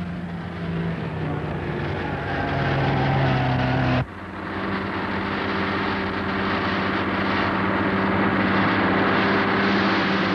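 Motor vehicle engine running, its pitch rising slightly over the first four seconds. About four seconds in the sound cuts off abruptly and a steady engine drone takes over.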